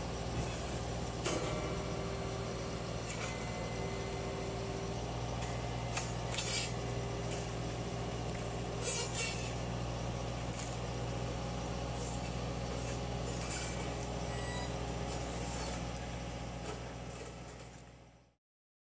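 A JCB telehandler's diesel engine runs steadily while its hydraulic GreenTec LRS2401 circular-saw branch cutter head works in a tree crown, with a humming tone that comes and goes. Short sharp cracks sound now and then as branches are cut. Everything fades out near the end.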